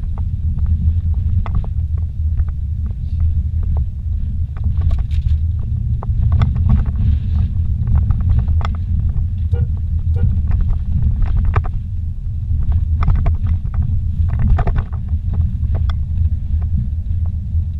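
Steady low rumble of a vehicle heard from inside the cabin as it drives a rough dirt track, with frequent knocks and rattles as it jolts over ruts and rocks.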